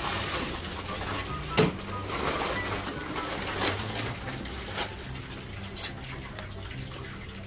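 Prawn fritters sizzling as they deep-fry in hot oil in a wok, with a sharp clack about one and a half seconds in and a few lighter knocks later.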